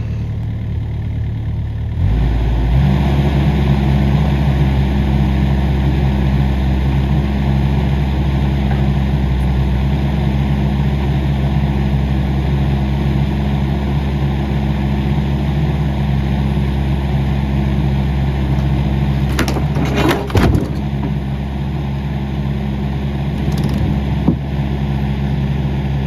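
Diesel excavator engine running steadily, stepping up to a higher, louder note about two seconds in and holding there. About twenty seconds in come a few sharp cracks and knocks as the old deck post is forced over and bends, with one more knock a few seconds later.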